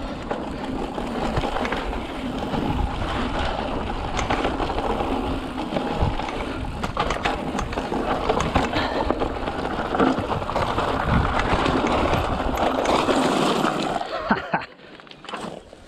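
Mountain bike riding fast down a bumpy dirt singletrack: tyres rumbling over the dirt with the bike rattling and clattering over bumps. It goes much quieter about fourteen seconds in as the bike slows on the gravel road.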